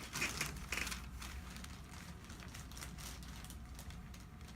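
Faint rustling and light handling noises from a patient shifting on a chiropractic treatment table, a few soft brief sounds in the first second, over a steady low hum.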